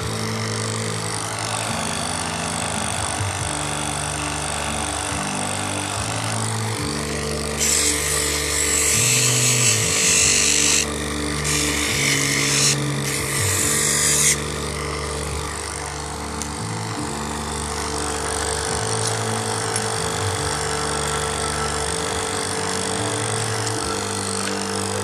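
Small electric lapidary polishing machine running with a steady hum. About eight seconds in, the wet moss agate cabochon is pressed against the spinning wheel, giving a loud rasping hiss in three stretches over about six seconds.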